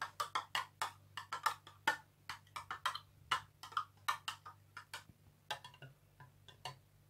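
Metal spoon stirring liquid in a clear plastic cup, clicking against the sides and bottom several times a second. The clicks thin out and grow fainter after about five seconds.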